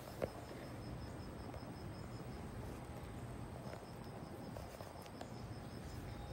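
An insect chirping in a faint, even high-pitched pulse, about five chirps a second, with a short pause in the middle, over a steady low outdoor hum. A single sharp click comes about a quarter-second in.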